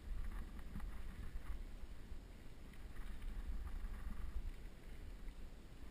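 Wind rumbling on the microphone as a mountain bike rolls along a gravel and dirt track, with faint crunching and light rattling from the tyres and bike.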